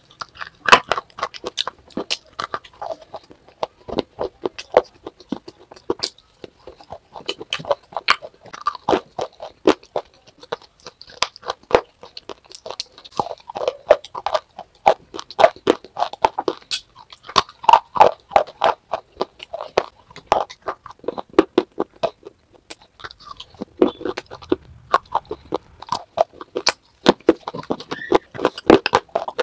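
Crunching and chewing of pieces of clay pot coated in creamy clay paste: a rapid, irregular run of sharp crisp cracks with softer wet chewing between them.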